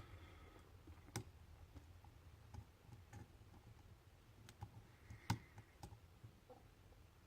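Faint, scattered clicks of a lock pick and tension wrench working the pins of a Lockwood pin-tumbler lock, about half a dozen over the stretch, with the sharpest click about five seconds in.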